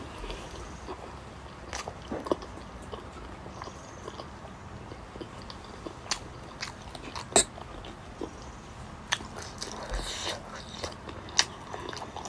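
Close-up mukbang eating sounds: a person chewing fried pork momos, with irregular wet mouth clicks and smacks, the loudest about seven seconds in and again near the end.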